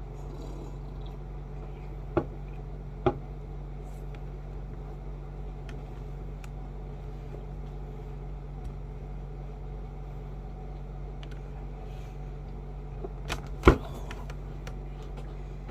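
A steady low hum of room noise, broken by a few short, sharp knocks: one about two seconds in, another a second later, and a louder pair near the end.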